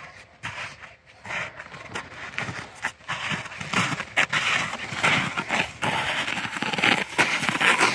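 Footsteps crunching on snow and ice in an uneven rhythm, with scraping and rustling close to the microphone, getting louder from about halfway through.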